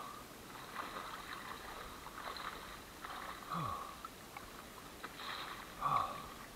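Small waves lapping and sloshing against a camera at the water surface, with three short low sounds that each fall in pitch, a few seconds apart.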